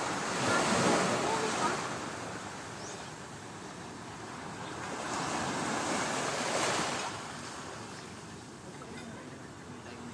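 Small waves washing onto a sandy beach, the surf swelling twice, once in the first couple of seconds and again about six seconds in.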